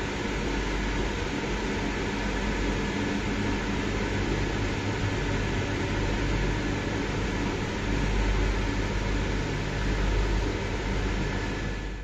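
Steady rushing hum of a ventilation fan, with a faint steady whine over a low rumble.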